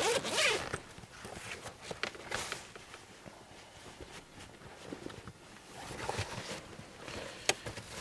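Zipper on a camera backpack pulled open with a loud rasp at the start, then quieter rummaging: rustling and small clicks of gear, with one sharp click near the end.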